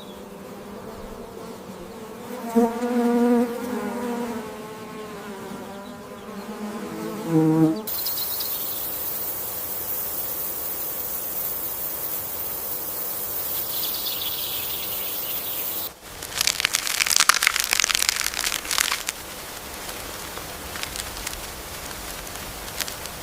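An insect buzzing with a wavering pitch for about five seconds, then a steady high insect chorus, then a few seconds of rapid crackling clicks.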